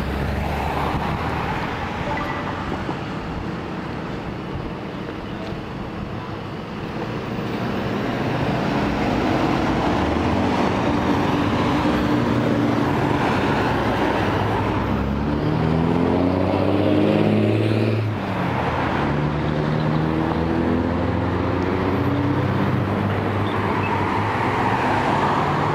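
Road traffic at a busy intersection: cars and trucks driving past close by. Engines pull away, and one engine's note climbs steadily in pitch and then breaks off about eighteen seconds in, before another takes over.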